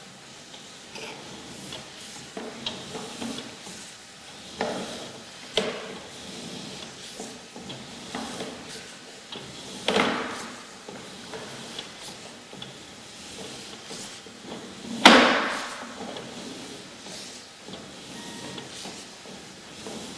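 Scattered knocks and sliding scrapes of handled equipment, the loudest about fifteen seconds in, with another strong one near ten seconds.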